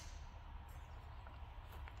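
Quiet outdoor background with a steady low rumble and two faint clicks, one about two-thirds of a second in and one near the end; no shots.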